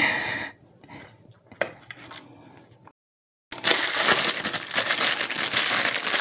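A short crackle and a couple of small clicks, then steady crinkling of a plastic piping bag full of pastry cream being handled.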